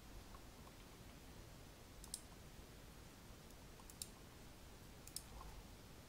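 Computer mouse button clicking: three short, sharp clicks about a second or two apart over near silence.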